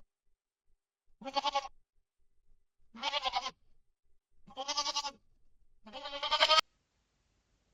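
Goat bleating four times, about a second and a half apart, each bleat a quavering call of about half a second; the last is the longest and loudest.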